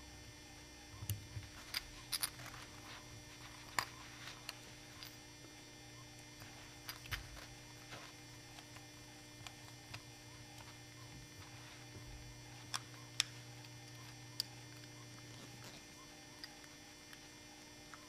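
Hand screwdriver turning small self-tapping screws into a machined metal microphone end plug: faint, irregular clicks and scrapes of metal on metal, a few sharper ticks, over a steady electrical hum.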